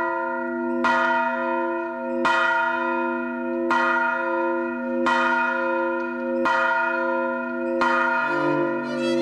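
A single bell tolling slowly, struck six times about every one and a half seconds, each stroke ringing on into the next. Near the end, bowed strings come in beneath it.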